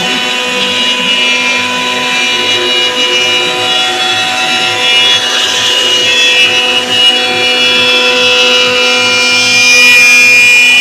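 CNC router spindle running and cutting wood: a steady, loud whine with a hiss of the bit in the material.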